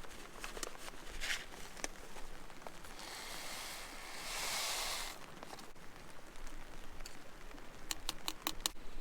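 Camp cooking sounds: scattered taps and clicks, a hiss for about two seconds midway, then a quick run of five sharp clicks near the end.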